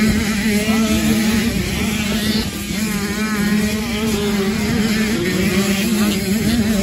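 Several two-stroke motocross bikes racing, their engines revving up and down in pitch as the riders open and close the throttle through the jumps.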